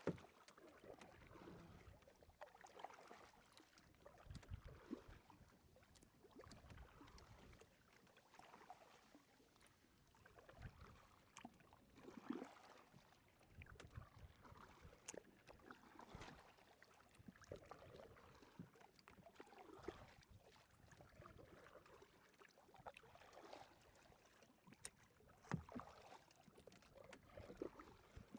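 Faint kayak paddling: soft, irregular paddle strokes in the water, with a few light knocks.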